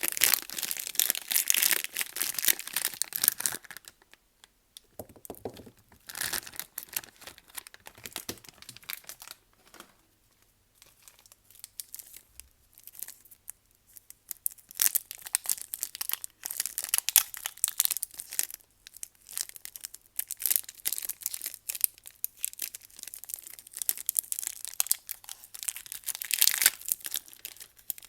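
Soap bar packaging being torn open and crinkled by hand, in bouts of crackly rustling with short pauses between them.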